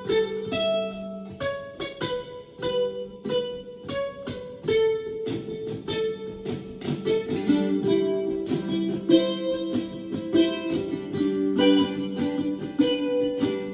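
Mandolin picking a melody in a quick run of plucked notes over a held low note.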